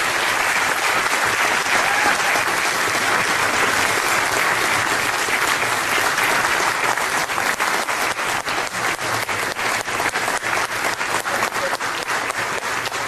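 Audience applauding, a dense steady clapping, with single claps standing out more in the second half as it thins slightly.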